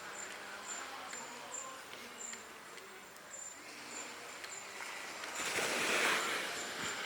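Insects chirping in a high-pitched pulse a few times a second, with faint short whistled calls beneath. About five seconds in, a loud hiss swells up and fades within about a second.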